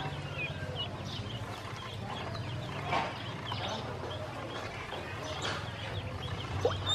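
Ducklings peeping with short high chirps while they dabble and peck at feed in a bowl, with occasional small clicks. A low steady hum runs underneath.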